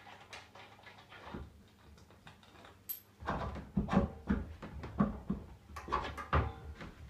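Rubber hammer tapping the wheel nut and bolt on a ride-on toy train's stub axle to free it: a run of dull, irregular knocks that starts about three seconds in.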